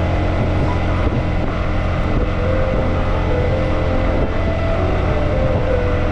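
Steady engine and road noise of a vehicle cruising along a highway, a constant low rumble with some wind noise on the microphone.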